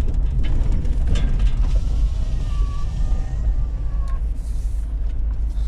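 Vehicle engine rumbling steadily while driving, heard from inside the cab, with rattling and creaking from the cab and a faint thin squeal about halfway through.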